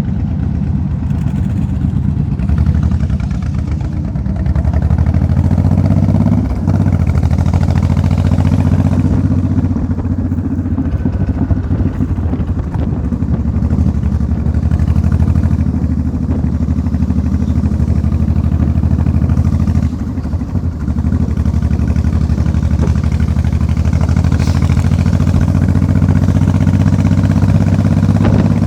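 An engine running steadily with a low, even drone, easing off briefly a few times.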